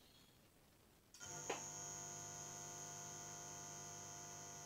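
Resistance soldering unit's transformer humming at 50 Hz mains as it is switched on about a second in, feeding current through the probe to heat a brass overlay and melt the solder paste. There is a short click just after it starts.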